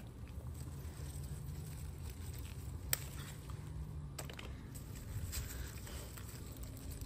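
Pepper plants being handled during picking: light rustling and a few sharp clicks, over a low steady rumble.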